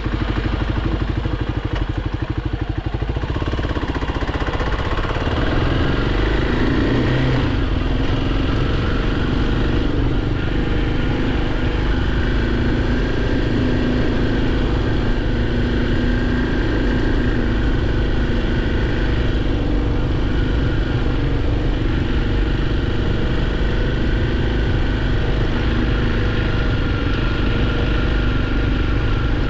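Kawasaki KLX300 dirt bike's single-cylinder four-stroke engine running under way, louder from about five seconds in, then steady.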